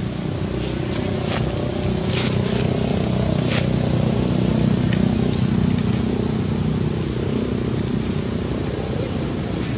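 A passing motor vehicle's engine hum, growing louder toward the middle and then easing off, with a few scattered clicks and rustles early on.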